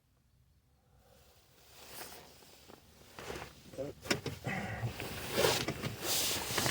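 Hands working wiring behind a car's dashboard: irregular rustling and scraping with sharp clicks, growing louder after a near-silent start, with some strained breathing or grunting.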